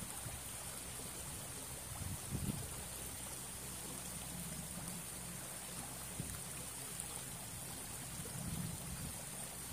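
Shallow stream trickling steadily over stones, with a couple of brief low rumbles about two seconds in and again near the end.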